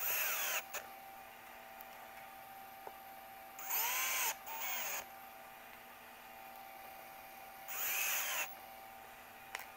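Cordless drill-driver driving small screws through a steel piano hinge into a plywood seat pan: three short bursts about four seconds apart, each a whine that rises and then falls in pitch as the motor speeds up and slows.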